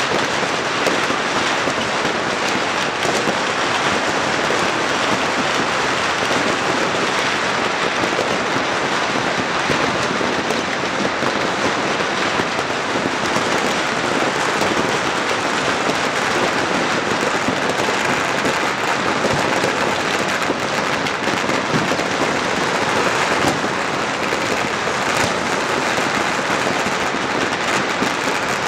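Dense, unbroken crackling of many firecrackers and fireworks going off at once, the countless small bangs merging into a steady, rain-like hiss.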